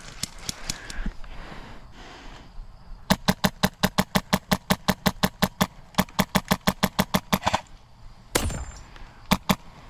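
Airsoft gun firing a rapid string of shots, about seven a second, in two runs with a short break between them. A few single shots follow near the end.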